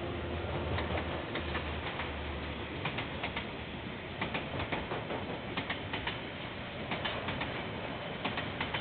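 Train rolling past, its wheels clicking over a rail joint in clusters of three or four clicks about every second and a half, over a steady rushing noise. A low hum fades away in the first second or two.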